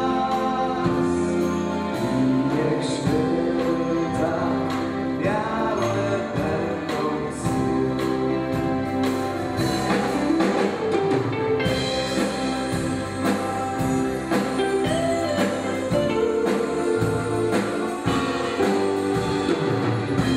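A group of young male and female voices singing a Christmas song together with instrumental accompaniment and a steady percussive beat.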